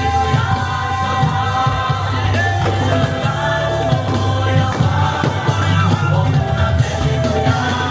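Show music with singing voices over a strong, steady bass.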